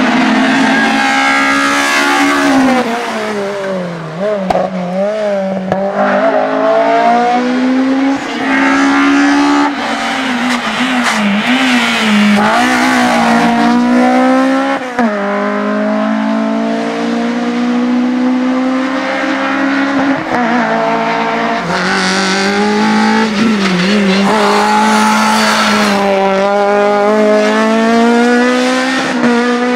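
Honda Civic race cars' 16-valve VTEC four-cylinder engines revving hard up through the gears, each run a climbing pitch that drops sharply at every upshift, as the cars pass one after another.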